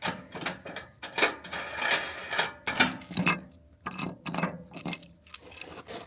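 Metal camping gear clinking and clattering as it is handled and packed away, a quick run of sharp knocks, some with a short metallic ring.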